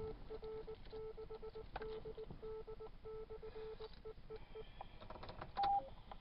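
Amateur radio repeater sending its Morse code identification, a single tone keyed in dots and dashes over the radio, followed about five and a half seconds in by a short two-note courtesy beep, high then lower.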